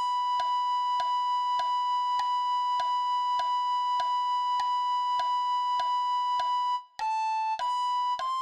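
Alto recorder melody: one long held high B (シ) for about seven seconds, then a brief break and three short notes stepping up (A, B, C), over a steady beat of clicks a little under two a second.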